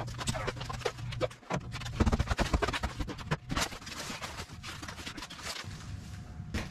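Irregular knocks, cracks and clattering of an old lath-and-plaster ceiling being pried and pulled down, with pieces falling.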